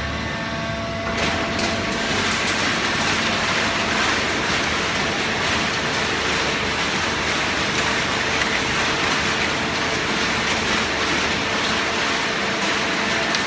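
Fully automatic horizontal waste paper baler running: a steady machine noise with a faint constant hum underneath, a little louder from about a second in.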